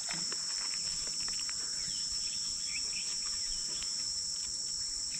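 Steady high-pitched drone of insects, with a few faint short chirps and ticks over it.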